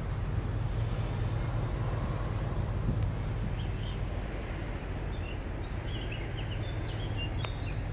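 Steady low outdoor rumble with birds chirping in the background, the short chirps coming more often from about three seconds in.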